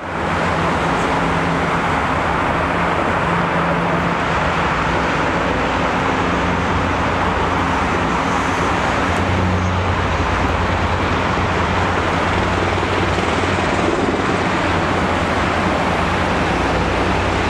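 Military helicopters flying over, a steady loud rotor and engine noise with low hum tones underneath.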